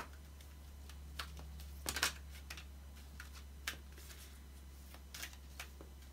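A deck of shiny oracle cards being shuffled by hand: irregular light clicks of the cards against each other, the loudest cluster about two seconds in. A steady low hum lies underneath.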